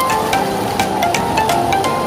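Music with a quick, steady beat of ticks and a melody of short notes.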